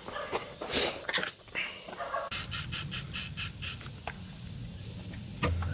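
Footsteps on gravel, then an aerosol can of WD-40 being shaken in a quick, even rhythm of about five or six shakes a second, just before it is sprayed onto seized sway-bar bolts.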